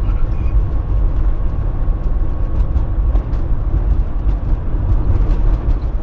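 Fiat Fiorino van heard from inside the cab while driving: a steady low engine and road rumble with scattered light ticks.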